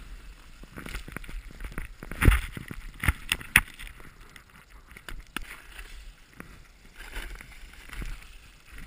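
Snowboard sliding and scraping over chopped-up snow, picked up by a helmet-mounted camera, with a run of sharp knocks as the board and rider jolt over bumps, the loudest about two seconds in.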